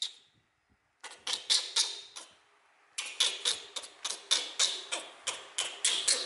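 Newborn kitten suckling from a milk bottle's teat: wet, rhythmic smacking clicks about four a second, a short run about a second in and a longer run from about three seconds in.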